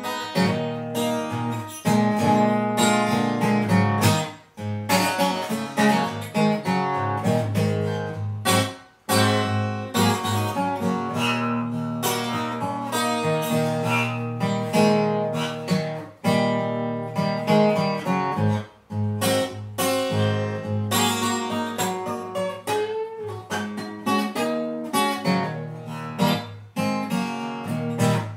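Acoustic guitar playing a blues instrumental break, plucked and strummed notes with a few brief pauses between phrases.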